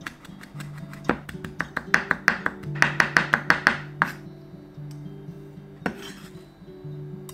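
Chef's knife rapidly chopping pickled plum (umeboshi) flesh on a wooden cutting board: a quick run of sharp taps, about five a second, from about a second in to about four seconds in, then one more knock near six seconds. Light acoustic guitar music plays underneath.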